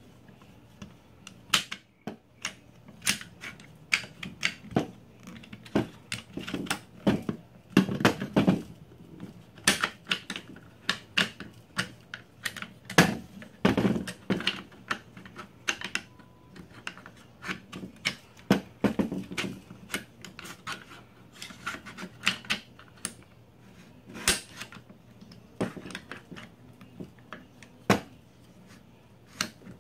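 Irregular metallic clicks, clacks and scrapes as the bolt and action slide of a Mossberg 500 shotgun are worked back and forth inside the receiver, trying to seat them. There are a few longer rattling scrapes among the sharp clicks.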